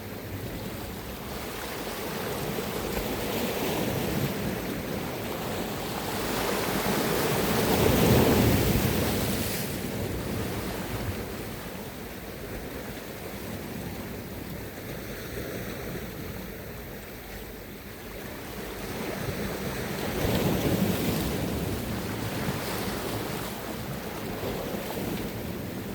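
Sea waves washing onto the shore, the surge swelling twice, loudest about eight seconds in and again about twenty-one seconds in, with some wind buffeting the microphone.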